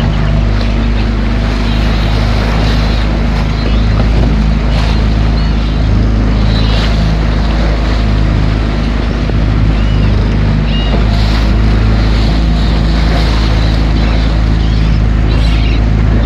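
A large engine running with a steady low hum, over wind noise on the microphone, with a few short, faint high-pitched calls here and there.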